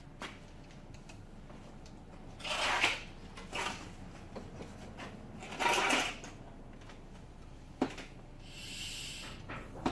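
Vacuum being pulled on a new fuel hose to draw fuel through to the carburettor: two short hissing rushes of air about three seconds apart, a sharp click, then a brief thin high hiss near the end.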